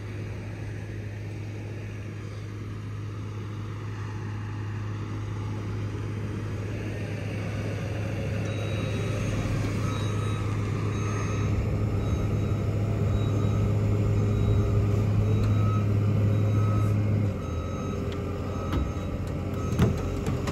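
Heavy diesel equipment pulling a chained car, its engine working harder and louder over several seconds before easing off near the end. A backup alarm beeps steadily while the machine reverses.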